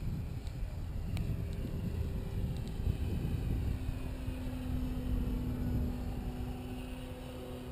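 Electric motor and propeller of a Dynam Waco RC biplane in flight, a faint steady hum that becomes clearer about halfway through, over wind rumbling on the microphone.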